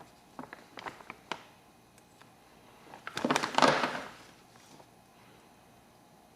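Hands working on a gas lighter inside a plastic bag: a few small clicks, then about a second of the plastic bag crinkling, starting around three seconds in.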